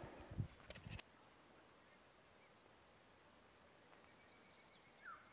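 Near silence: faint outdoor ambience with a steady high hiss and a few faint bird chirps, after a few soft low thumps in the first second.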